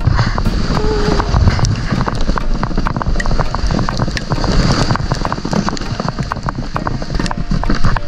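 Sled sliding down a snowy slope: a steady rush of wind buffeting the microphone, with a dense crackle of scraping over the snow.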